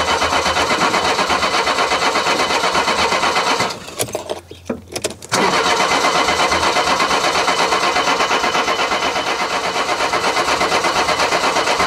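A Mercedes W123 230E's four-cylinder petrol engine being cranked by its starter motor with a steady pulsing rhythm, turning over without firing. The cranking stops for about a second and a half near four seconds in, then starts again. It is a crank-but-no-start, and after the fuel distributor rebuild the owner takes it to mean fuel is still not being delivered.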